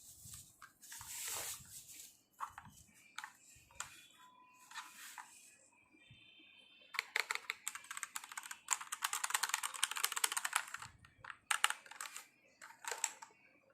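Mechanical keyboard with red linear switches being typed on: scattered keypresses at first, then a fast run of keystrokes from about seven seconds in to about eleven, then a few more.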